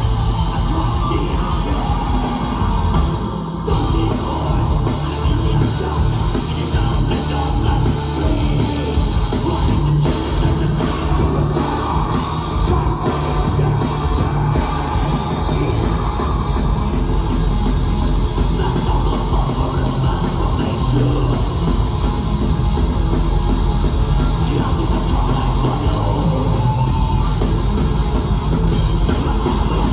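Black metal band playing live at full volume: distorted electric guitars over a drum kit, a dense, unbroken wall of sound.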